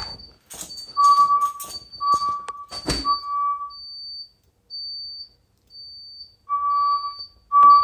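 Fire alarm voice-evacuation alert tone: a steady tone sounding in groups of three short pulses (temporal-three pattern), a pause of a few seconds, then three more. A short high-pitched beep repeats about once a second throughout, and a few knocks come in the first three seconds.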